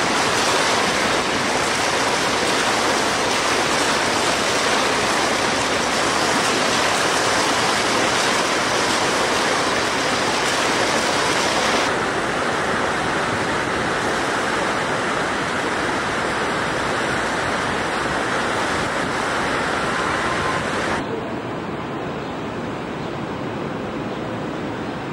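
Steady rush of splashing water from a large plaza fountain. The sound abruptly turns duller about halfway through, then duller and a little quieter near the end.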